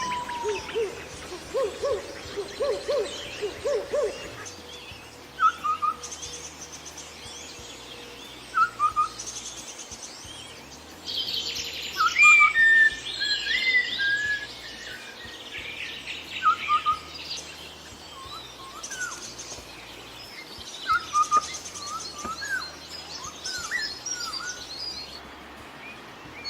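Several wild birds calling: a quick series of low notes in the first few seconds, short chirps repeated every second or two, and bursts of higher twittering midway and near the end.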